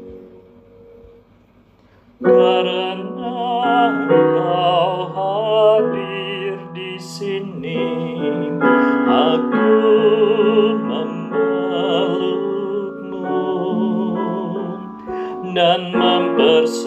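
A song with piano and a solo voice singing with strong vibrato. It starts abruptly about two seconds in, after a short lull as the previous music fades out.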